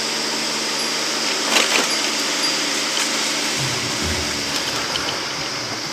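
A car driving along a road, heard from inside the cabin: a steady engine and road-noise hum, with low rumbling bumps from the tyres starting a few seconds in.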